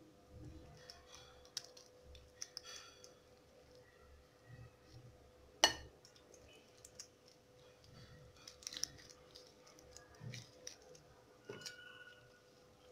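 Silicone spatula scraping and tapping on a glass baking dish while spreading a soft vegetable topping: scattered light clicks and soft scrapes, with one sharp tap about six seconds in.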